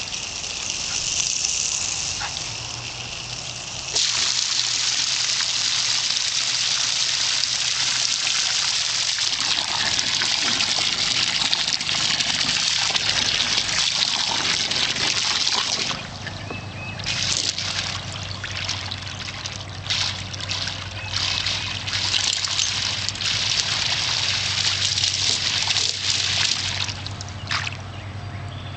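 Garden hose spraying water into a plastic kiddie pool: a loud, steady hiss of spray that starts suddenly about four seconds in, then turns uneven and splashy through the second half.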